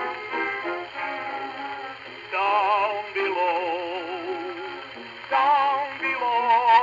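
A song with accompaniment: short instrumental notes, then a voice singing long held notes with a wide vibrato from about two seconds in. The sound is thin, with no deep bass and no high treble.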